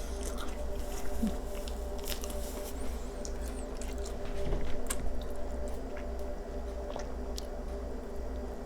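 Close-miked eating: biting and chewing a sloppy joe on a crusty toasted bun, with crisp crunches and wet squishing, over a steady low electrical hum.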